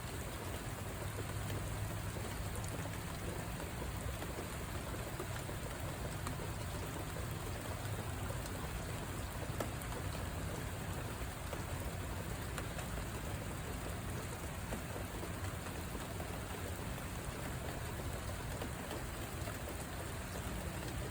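Steady rainfall, with drops pattering on surfaces and an even rushing hiss.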